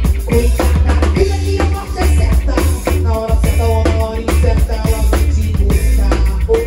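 A band playing live, heard through the stage sound. A Waldman Turbo 2.0 electric bass carries a heavy low line under a drum kit and other pitched instruments.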